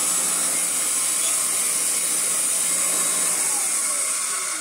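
Royal 606 commercial upright vacuum cleaner running steadily: a loud, high rushing hiss over a low hum. The hum fades about three and a half seconds in, and the whole sound begins to die away right at the end.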